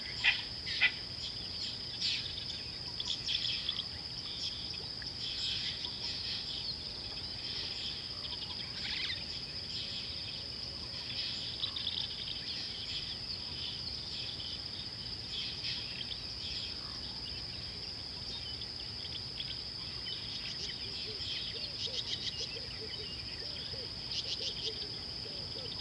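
Steady high-pitched insect drone with birds chirping and calling on and off over it, including bursts of rapid chirps near the start and near the end.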